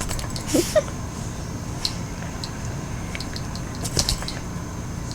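Scuffling of a dog tugging hard on a rope toy: scattered sharp clicks and knocks, a cluster of them about four seconds in, with a brief short vocal-like sound about half a second in.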